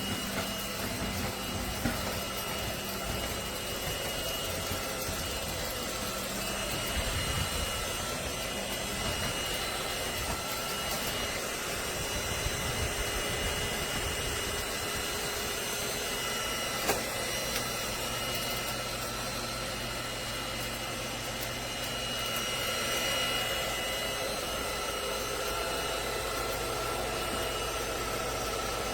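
Cordless stick vacuum cleaner running steadily: a constant high whine over an even hiss, with a couple of brief sharp clicks.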